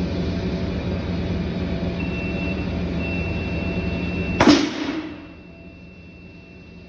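Brown Boveri DBC airblast circuit breaker operating about four and a half seconds in: one sharp bang with a short rush of released compressed air that dies away within half a second. Before it there is a steady mechanical running noise with a low hum, which drops away just after the bang.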